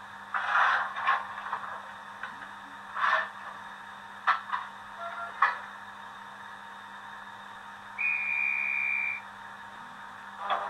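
Digital sound decoder of an H0 model steam locomotive standing still, playing its sound effects through a small onboard speaker: several short hisses and sharp clicks, then a steady high tone a little over a second long about eight seconds in.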